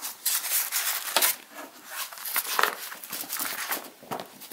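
A folded paper board-game rulebook being unfolded and its pages turned by hand: irregular paper rustling, with the sharpest rustle a little over a second in.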